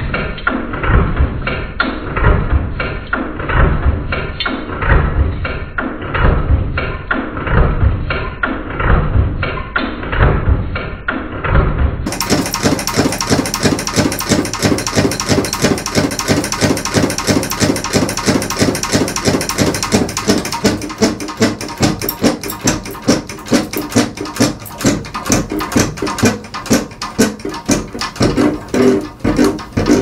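Badly unbalanced ceiling fan, its three blades all on one side of the hub, wobbling hard on its mount: a rhythmic knocking and rattling that repeats with each turn. The beat gets faster in the second half.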